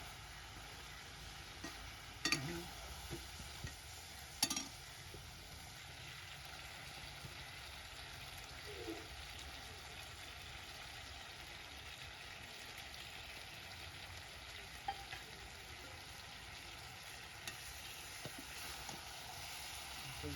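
Chicken curry frying and sizzling in a pot over a firewood fire, a steady hiss with two sharp clicks about two and four seconds in.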